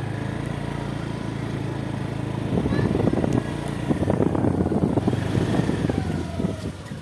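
Motorcycle engine running as the bike rides along a rough road, a steady hum at first. About two and a half seconds in, a louder, irregular rumbling and crackling takes over, and it eases off near the end.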